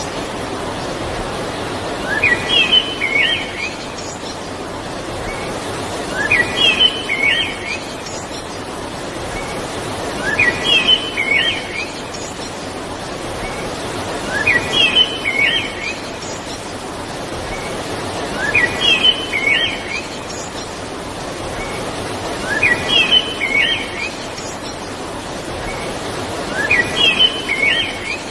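Steady rush of river water, with a bird singing the same short phrase of quick rising and falling notes about every four seconds, seven times over.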